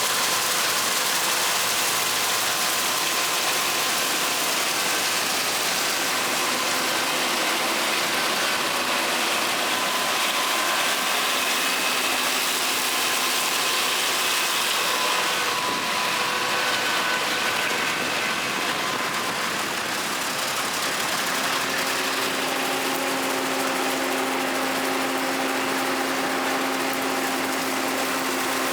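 Combine harvester running steadily: a constant dense machine noise with several steady whining tones over it. A low hum grows stronger about three quarters of the way through.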